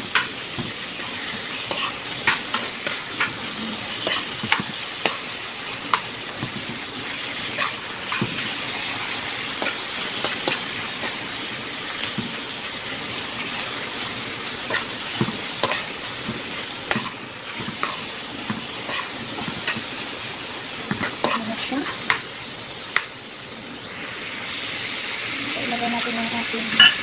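Chicken pieces and vegetables sizzling in hot oil in a pan, stir-fried with a spatula that scrapes and clicks against the pan again and again.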